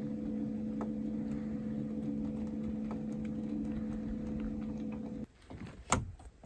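A steady low mechanical hum with a few faint ticks, which cuts off suddenly about five seconds in; a couple of sharp knocks follow near the end.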